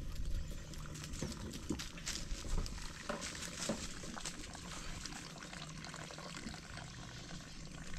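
Hot water poured from a kettle into a coffee filter on a thermos, trickling as the coffee drips through, with small scattered ticks.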